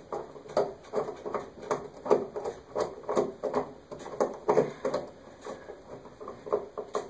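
Irregular scratching and tapping, a few times a second, of hands working at a porcelain lampholder screwed to an overhead electrical box.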